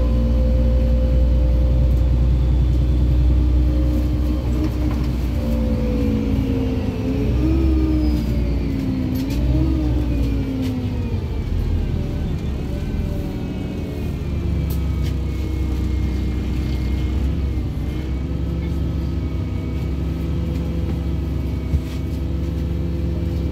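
LiAZ-5292 city bus heard from inside the passenger cabin: the engine hum rises and falls in pitch several times between about six and eleven seconds in, under a thin whine that slowly falls in pitch. It then settles into a steadier, slightly quieter hum, with a single sharp click near the end.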